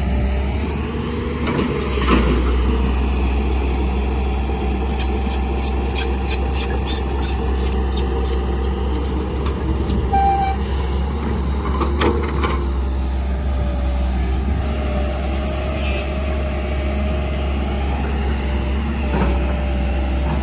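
Heavy diesel construction machinery running steadily, with a few knocks.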